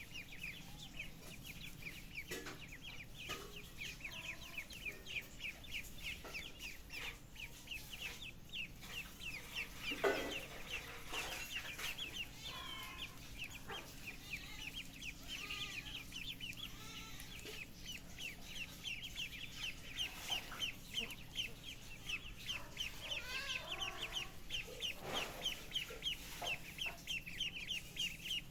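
Young poultry peeping constantly in rapid high chirps, about five a second, with a few longer falling calls mixed in. A brief knock about ten seconds in is the loudest moment.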